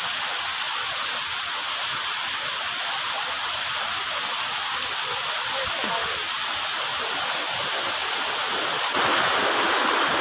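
Steady rush of water falling at a waterfall, a little louder near the end.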